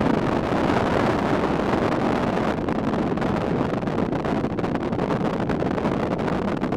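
Wind rushing over the microphone of a camera in a moving car: a loud, steady rush with crackling through the second half.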